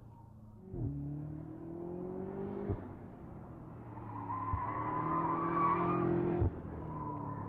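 2018 BMW M5 F90's twin-turbo V8 accelerating hard. The engine note climbs in pitch and drops back at quick upshifts, each marked by a short crack, about every two seconds.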